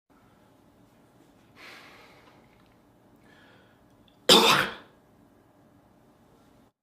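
A man's single loud, sharp cough about four seconds in, lasting about half a second, preceded by a fainter breathy sound about a second and a half in.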